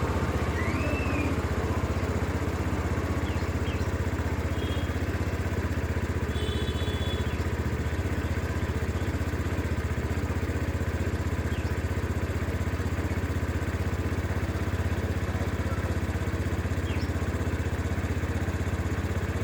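An engine running steadily at idle, a constant low drone with no change in speed, with a few faint high chirps over it.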